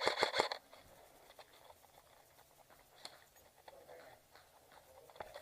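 Airsoft gun firing a quick string of about half a dozen shots in the first half second, followed by scattered faint ticks and clicks, with single sharper clicks about three seconds in and near the end.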